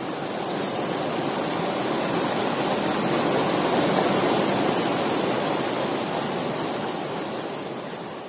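White water of a rocky waterfall stream rushing over boulders: a steady, loud rush that swells a little toward the middle and fades away near the end.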